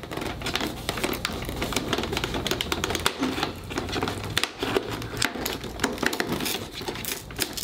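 Fingernails scratching and picking at the perforated cardboard door of an advent calendar, a rapid, irregular run of small clicks and scrapes as the cardboard is pried open.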